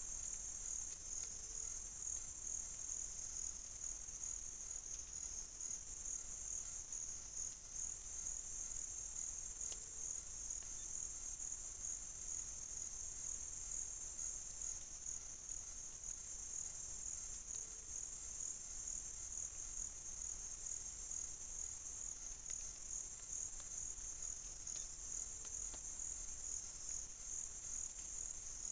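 Steady high-pitched chorus of forest insects such as crickets, trilling without a break. Faint, short low notes come about every eight seconds.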